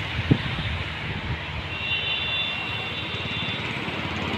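Steady rush of vehicle and road noise, with a single sharp tap just after the start and a faint high-pitched tone for about two seconds in the middle.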